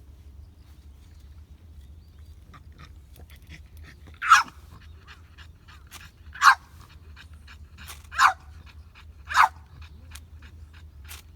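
Pet dog panting quickly and barking four times in short single barks about two seconds apart, unusually vocal for this dog.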